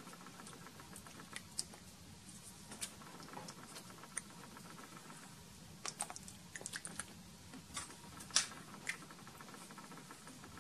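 Faint, irregular clicks and taps of a kitchen utensil against cookware as meat sauce is put on and spread over a layer of penne in a baking pan, with a few louder clicks about six and eight seconds in.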